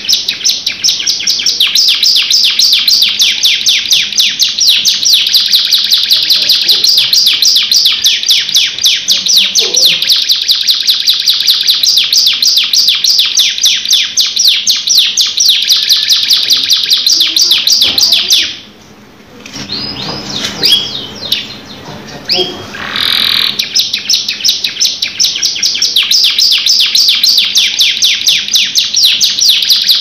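Domestic canary singing a long rolling song of fast, rapidly repeated high trill notes. A little past halfway it breaks off for a few seconds, with only a few soft chirps, then resumes the rolling trills.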